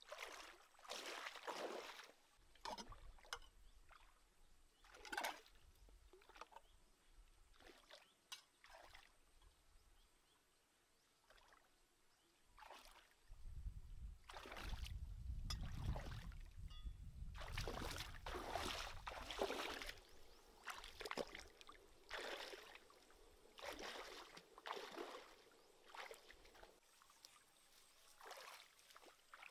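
Water splashing and sloshing in uneven bursts as a person wades through a shallow rocky stream, with a low rumble for a few seconds in the middle.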